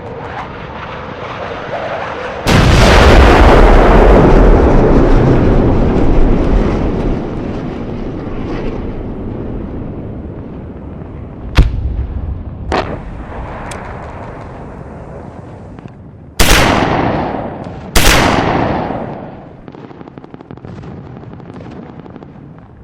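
A loud blast about two and a half seconds in that dies away over several seconds, then a few sharp cracks, then two more loud blasts a second and a half apart near the end, each fading off.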